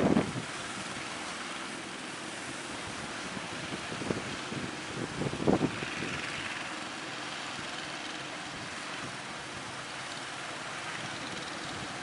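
Steady rush of breaking sea surf with wind buffeting the microphone, with short louder gusts right at the start and about 4 and 5.5 seconds in.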